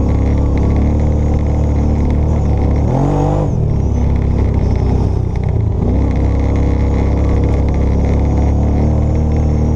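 ATV engine running under load, heard from a camera mounted on the machine's front rack. About three seconds in its pitch rises briefly, then it eases off for a couple of seconds before running steadily again.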